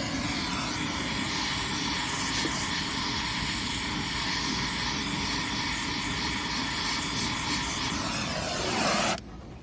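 Gas brazing torch flame burning with a steady hiss while heating a copper joint. Near the end the sound falls in pitch and cuts off suddenly as the torch is shut off.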